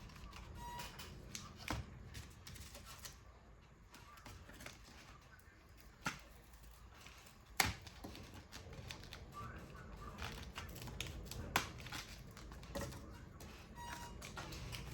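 Light, irregular clicks and taps of paper and card being handled and worked by hand, a sharp tap every few seconds over a faint background.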